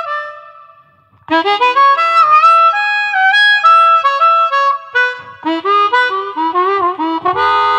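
Harmonica music played in chords with bent notes. It fades out just after the start, pauses briefly, and picks up again about a second in.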